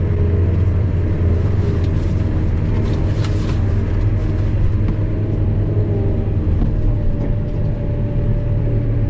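Kubota M7-153 tractor's four-cylinder diesel engine running steadily while driving, heard from inside the cab: a deep, even drone with a faint higher whine over it and a few light rattles about three seconds in.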